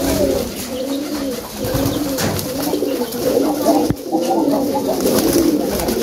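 Several domestic pigeons cooing, their low calls overlapping and repeating, with a sharp click about four seconds in.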